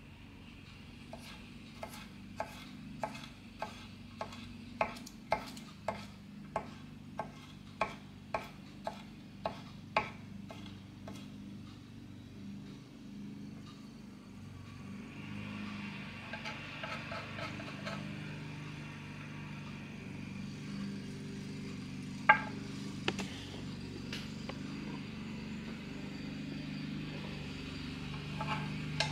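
Knife chopping garlic on a wooden cutting board: a steady run of sharp knocks, about two a second, for some ten seconds. Then a softer scraping stretch and a single sharp knock about 22 seconds in.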